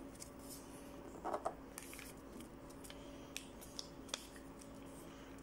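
Sheet of paper being handled and folded: faint rustles about a second and a half in and a few crisp ticks of creasing later, over a steady low hum.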